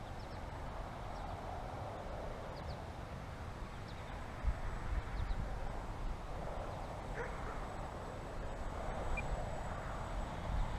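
Strong, gusty wind buffeting the microphone: an uneven low rumble under a rushing hiss that swells and eases.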